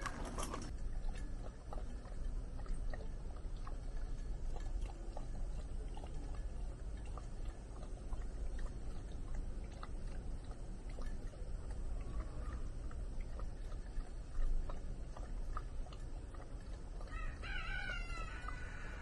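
A dog eating from a stainless steel bowl close by: scattered small clicks and crunches over a steady low background rumble. A rooster's crow trails off at the very start, and a bird gives a quick run of chirps near the end.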